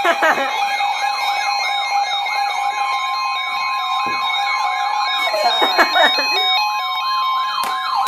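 Electronic sirens yelping, several sweeping up and down at once about three times a second, over steady alarm tones. About five seconds in, a jumble of short stepped beeps and broken sweeps cuts across them.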